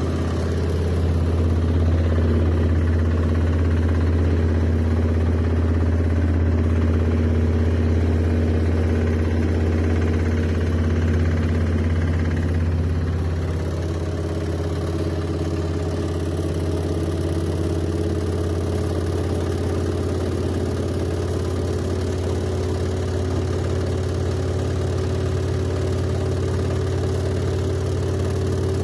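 Washing machine running: a steady low motor hum with a drum drone, easing slightly about halfway through.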